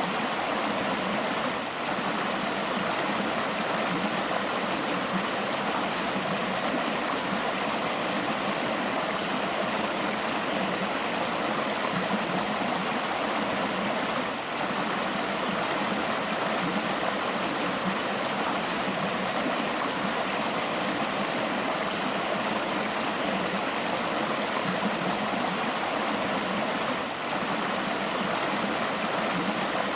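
River water flowing steadily, a continuous babbling rush with no let-up.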